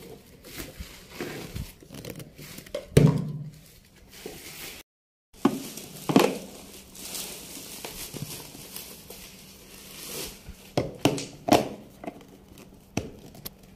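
Hard plastic parts of an IKEA Mammut children's stool knocking and rubbing as the legs are pushed into the seat, with plastic wrapping crinkling. Irregular knocks, the loudest about three seconds in and another about six seconds in.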